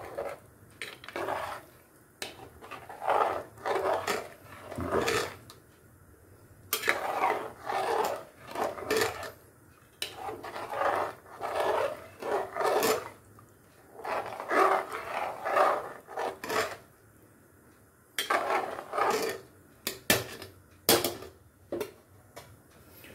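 A steel spoon stirring and scraping through thin gravy in an aluminium pressure cooker, in rounds of quick strokes with short pauses between them. A few sharper knocks of metal on metal come about twenty seconds in.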